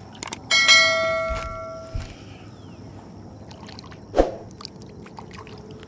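Two quick mouse-click sound effects, then a bright ringing chime that starts suddenly and fades out over about a second and a half. About four seconds in, a short splash as a bass is let back into the lake water.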